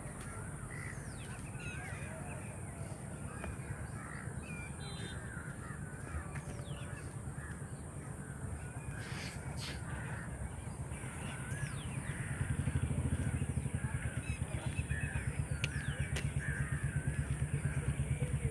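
Many birds calling over one another, with crows cawing, over a low engine hum that grows louder about twelve seconds in.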